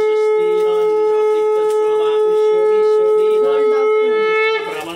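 Conch shell (shankha) blown in one long, steady, loud note as part of a Hindu puja, stopping shortly before the end. Voices are faintly audible beneath it.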